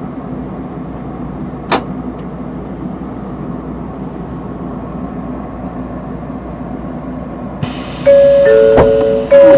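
A steady low hum with a single click, then a two-tone ding-dong chime near the end, a high note falling to a lower one, sounding twice about a second apart.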